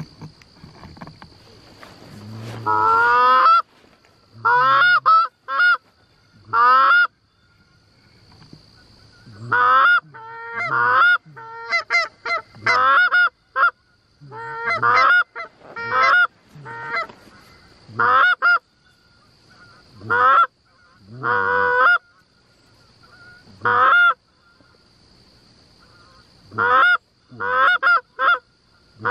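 Canada goose honks and clucks, loud and close, coming in short runs of one to several calls every second or two.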